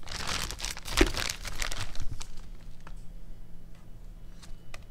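Crinkly rustling and scraping as a chunk of ground beef tallow is torn apart by hand and cut with a knife, dense for about two seconds, then a few light taps.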